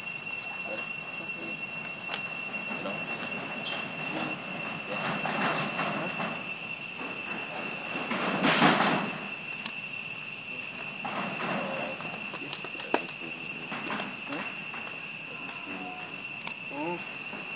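Steady chorus of insects, a constant high-pitched drone on two steady pitches, with a brief louder burst of noise about eight and a half seconds in.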